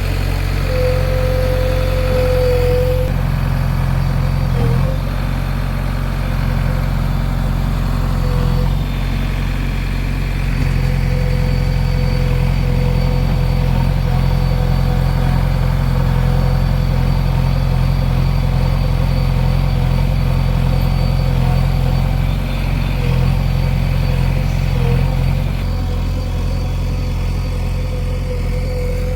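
Diesel engine of a backhoe loader or tractor running steadily at low revs, with a thin steady whine over it.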